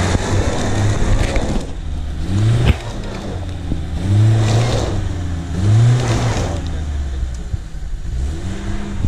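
Lada Niva's engine revving hard and dropping back several times, with the loudest pushes about four and six seconds in, as the car tries to drive through deep mud in a rut.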